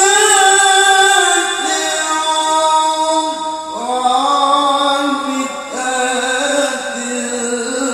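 A man's unaccompanied melodic Arabic recitation into a microphone, in the ornamented style of a qari: long held notes that slide into new pitches a few times.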